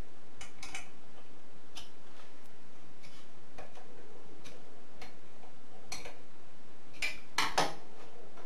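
Light metallic clicks and taps of a screwdriver working the screws that hold the wheel guards onto an old bench grinder, scattered about a second apart. A louder clatter of a few knocks comes near the end, as the screwdriver is set down on the bench.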